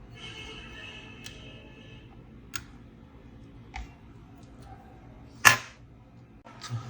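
Light clicks and taps from laptop parts being handled on a workbench, with one loud sharp click about five and a half seconds in, over a steady low hum.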